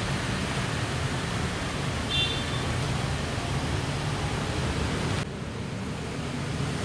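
Lakoni oil-less air compressor running: a steady, noisy whir with a low hum. About five seconds in, the higher part of the noise drops off suddenly and it gets a little quieter.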